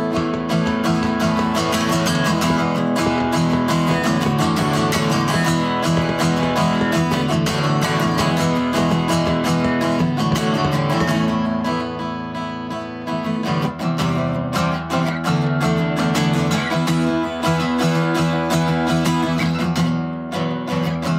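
Instrumental background music led by guitar, with a brief quieter, thinner passage about twelve seconds in.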